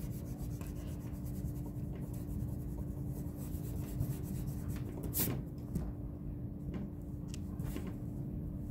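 Eraser rubbing back and forth on drawing paper, erasing pencil guide lines, with a few sharper strokes about five to eight seconds in.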